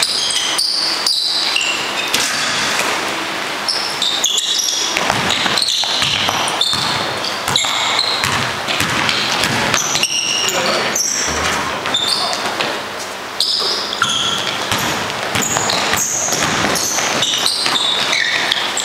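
A basketball game in a gym: the ball bouncing on the court, repeated knocks, and short high squeaks of sneakers on the floor, with players' voices calling out in the echoing hall.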